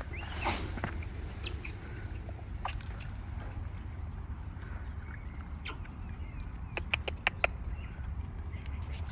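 A few brief, high, quickly falling chirps or squeaks from an animal in the first three seconds. About seven seconds in comes a quick run of sharp clicks. A steady low rumble lies underneath throughout.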